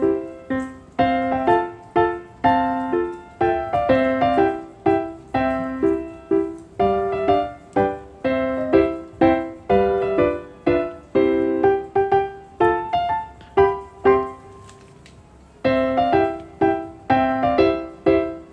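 Background piano music: a light tune of struck notes, a few a second, with a short pause near the end.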